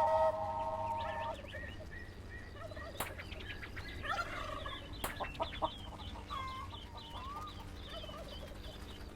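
Quiet, rapid gobbling and chirping calls like a turkey's, with two sharp clicks among them. A whistle-like tone fades out about a second in.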